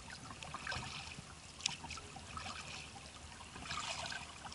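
Faint trickling and dripping of water around a kayak on calm water, soft and irregular, with a small tick of a drip about a third of the way in.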